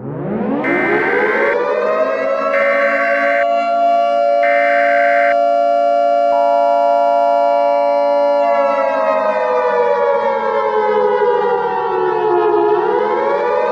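Air-raid siren winding up from silence to a steady wail, with three short higher tones over it in the first five seconds. After about eight seconds its pitch slowly falls, then starts rising again near the end.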